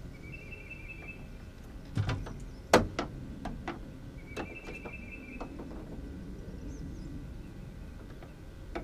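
Scattered knocks and clicks of tackle being handled in an aluminum boat, the loudest a sharp knock about three seconds in, over a low steady background. A thin, high, steady tone about a second long sounds near the start and again about halfway through.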